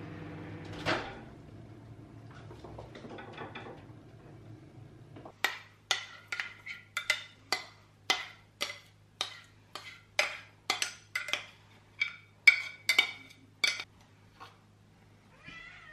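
Cutlery or dishes clinking: about twenty sharp, briefly ringing clinks at two or three a second, starting about five seconds in and stopping near the end, after one knock about a second in.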